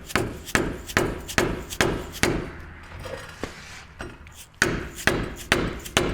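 Hammer blows on the steel brake caliper of a truck's front brake, about two to three a second, each with a short ring. They come in two runs with a pause of about two seconds between them. The hammering is at a caliper slide that is rusted in and will not move freely.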